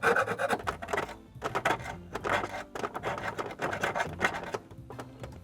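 Cotton swab scrubbing vinegar-softened corrosion off metal battery terminals: a run of short scratchy rubbing strokes, about five or six, growing fainter near the end.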